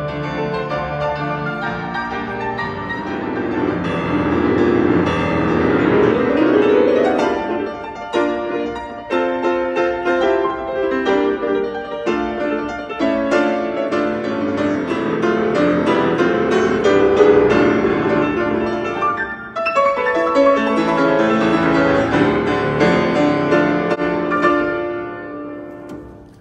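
Steinway grand piano played solo: a fast, dramatic piece of rapid runs and heavy chords. It breaks off briefly about three-quarters of the way through and dies away at the end.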